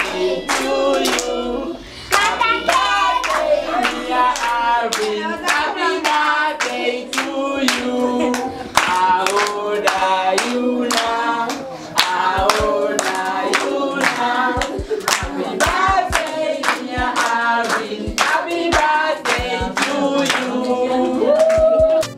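A group of children singing together while clapping in time, about two claps a second.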